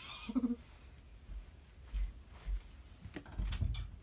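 Soft low thumps and light rustling of someone moving about and getting up on a carpeted floor, with a short vocal sound near the start.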